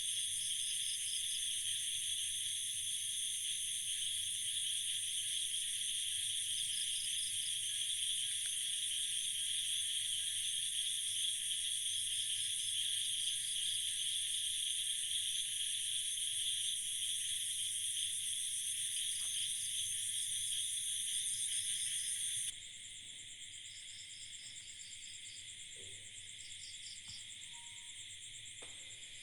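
Night chorus of crickets and other insects: a steady high-pitched shrilling, with a short pulsing trill repeating every few seconds. About two-thirds of the way through, the highest, loudest strand of the chorus cuts off abruptly and the whole thing drops in level.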